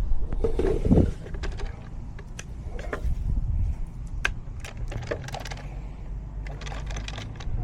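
Scattered clicks, knocks and clatter of hands handling parts and tools, with a louder thump and rustle about a second in, over a low steady hum.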